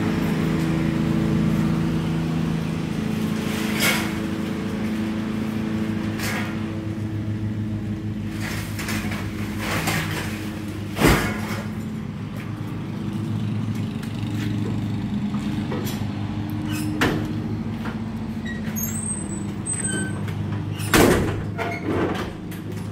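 A motor running steadily with a low hum, and several knocks and clunks over it, the loudest about 11 and 21 seconds in.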